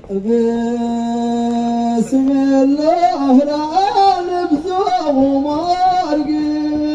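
A man's solo voice singing an Amazigh Ahwash chant. He holds one long note for about two seconds, then sings an ornamented phrase that wavers up and down, and ends on another held note.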